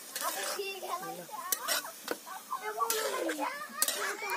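Metal spatula scraping and tossing chopped pumpkin leaves in a metal cooking pot while they stir-fry: about four separate scraping strokes.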